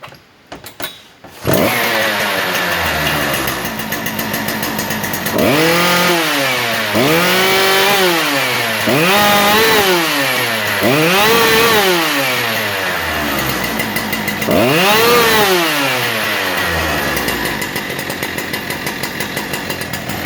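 Husqvarna 3120 XP chainsaw's big two-stroke engine started with the decompression valve out, catching about a second and a half in, then idling and revved up and down five times before settling back to idle. It runs smoothly after repair of its air leaks and a new high-performance ignition coil.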